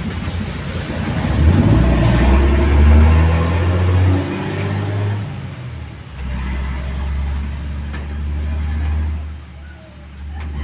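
A motor vehicle's engine running with a low rumble that swells about a second and a half in and falls away around five seconds, then settles into a steadier drone that dips briefly near the end.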